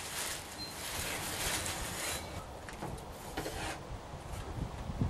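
Clear plastic packaging crinkling and rustling as it is handled and put down. It quietens after about two seconds into lighter handling of a waxed cardboard carton, with a dull thump near the end.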